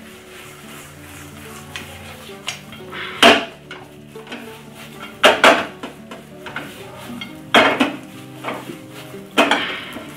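Spatula stirring and pressing thick mashed-potato masala in a non-stick frying pan, with several sharp knocks of the spatula and pan.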